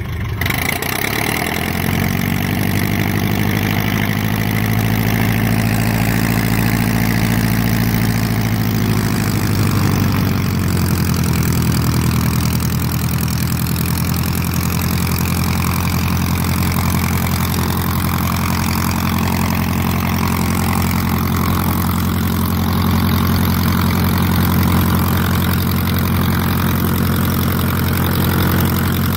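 Continental A-65 flat-four aircraft engine and propeller of a Luscombe 8A running steadily on a ground run. Its pitch drops a little about ten seconds in.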